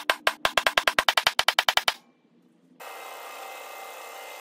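Rapid sharp clicks, about ten a second, of a center punch marking hole centres in a steel bar. They stop about two seconds in, and a drill press starts running steadily a little before three seconds in.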